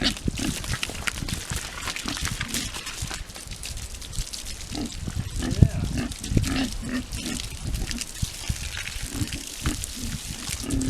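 Landrace pigs grunting, many short low grunts one after another, with a sharp knock about halfway through.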